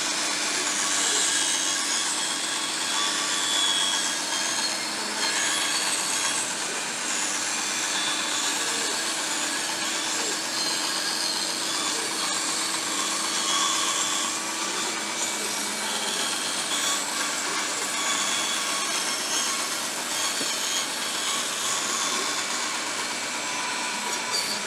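Band saw running and cutting a curve through a sheet of plywood, a continuous cutting noise over the steady hum of the saw's motor.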